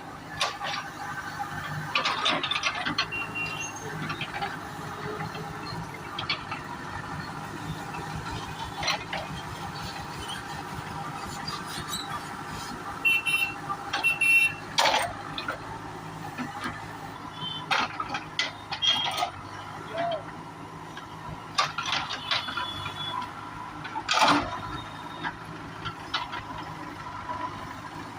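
Backhoe loader's diesel engine running steadily while the machine works, with repeated short clanks and brief high squeals scattered throughout.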